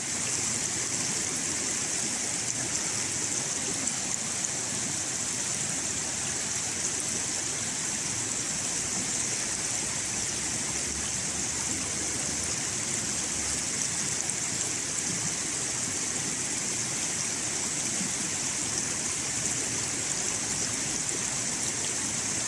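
Shallow river rushing over a stony riffle: a steady hiss of running water.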